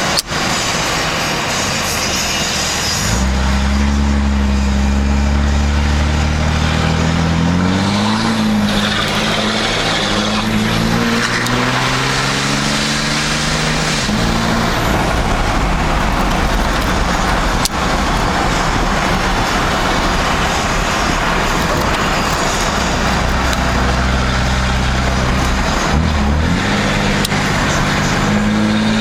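Cummins turbo-diesel engine of a Dodge pickup running as the truck drives, over steady road noise. Its low drone climbs in pitch about eight seconds in, drops away under the road noise in the middle, and returns near the end.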